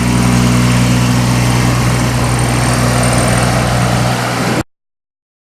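Yanmar diesel engine of a Takeuchi TB016 mini excavator running steadily. The sound cuts off suddenly about four and a half seconds in.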